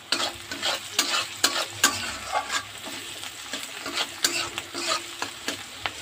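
Chopped onions sizzling in hot oil in a metal kadai while a flat metal spatula stirs them, scraping and clicking irregularly against the pan. The onions are being sautéed with salt and sugar until soft and lightly golden.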